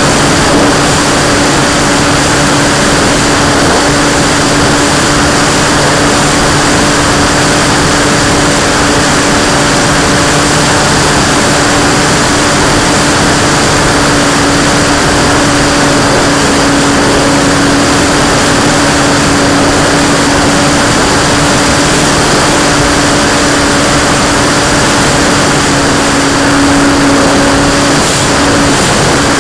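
Radio-controlled P-51 model plane's motor and propeller running at a steady high throttle, heard up close from the nose-mounted camera, with one steady tone over a constant rush of wind and propeller noise. The tone drops out briefly near the end, then comes back.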